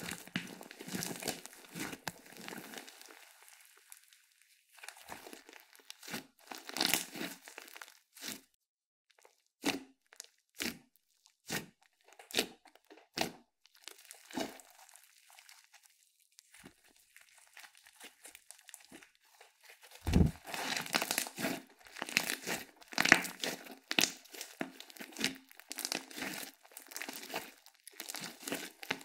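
Slime being squeezed, stretched and pressed by hand, crackling and popping in dense runs with quieter single pops between them, and one low thud about twenty seconds in.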